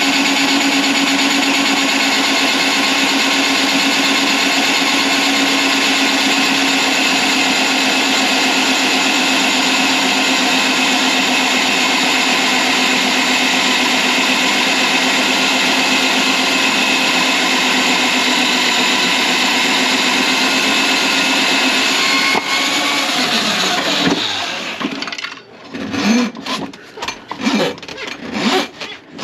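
Electric drain-cleaning machine running steadily with an even motor hum, spinning its cable through a kitchen sink drain line clogged with grease. The motor stops about 24 seconds in, followed by a run of irregular scraping and rubbing sounds.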